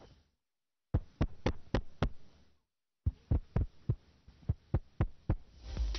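A quick run of low thumps, about three or four a second, cut by two brief dropouts of total silence.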